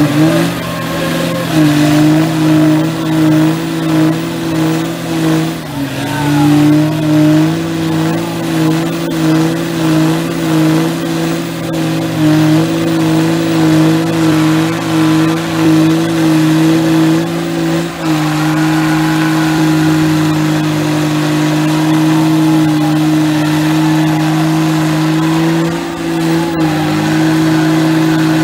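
Engines of two lifted mega trucks held at high revs under full load, pulling against each other in a tug-of-war. The engine note wavers in a regular pulse for the first two-thirds, then holds steady, with a brief dip near the end.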